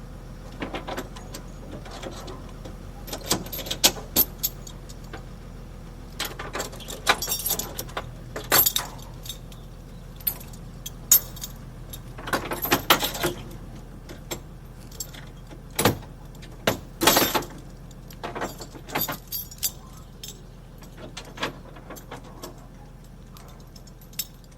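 Skip lorry setting down a metal skip: irregular metallic clanks and rattles over a steady low engine hum.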